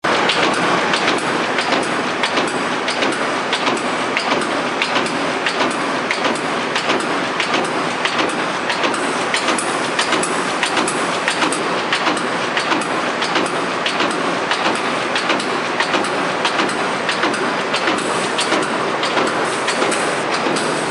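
SW QCK 450 automatic paper-punching machine for spiral binding running continuously, its motor noise overlaid with a steady rhythmic clatter of repeated punch strokes.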